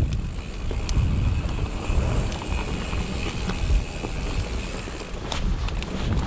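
Wind buffeting the microphone of a mountain biker's camera while riding, with scattered clicks and rattles from the bike on a rocky trail.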